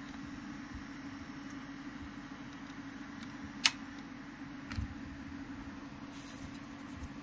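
A steady low hum, with one sharp click about halfway through and a soft low thump about a second later.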